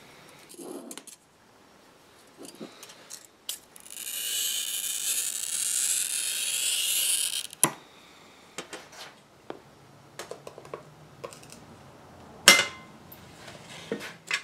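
A glass cutter scoring a pane of antique glass along a straightedge: a steady, high scratchy hiss lasting about four seconds that ends in a sharp click. Light clicks and taps of tools on the glass follow, with one loud sharp knock about twelve and a half seconds in.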